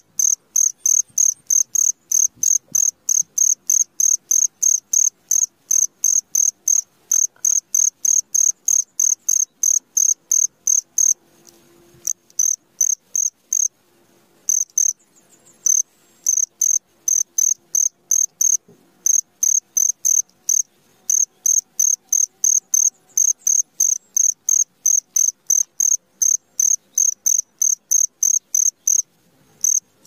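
A cricket chirping in an even rhythm, a high-pitched chirp about three times a second. It breaks off for a few seconds around the middle and again briefly near the end.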